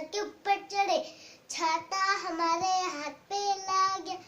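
A child singing a Hindi nursery rhyme alone, with no accompaniment, in short phrases and some held notes.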